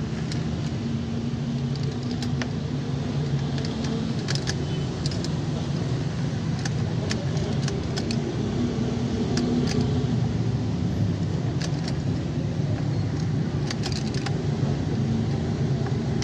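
Car keys and keyring jangling at the ignition lock of a Suzuki Mehran as the key is worked in it: light metallic clicks in scattered clusters over a steady low hum.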